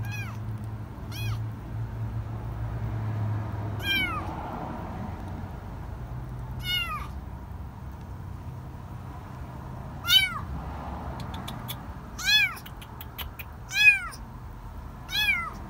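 Kitten meowing from inside a car's bumper: about eight high, thin cries a second or more apart, each rising then falling in pitch, the later ones louder, over a low hum.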